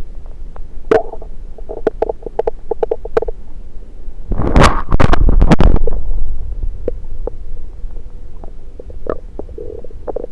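Stomach and bowel gurgles heard through a stethoscope pressed on the belly: a quick run of bubbly pops about two seconds in, a loud gushing rumble around the middle, then scattered small pops.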